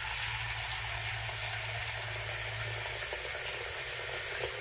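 Water running from a Moen Karis bathroom faucet into the sink basin with the pop-up drain plunger closed, so the basin is filling. It makes a steady splashing hiss.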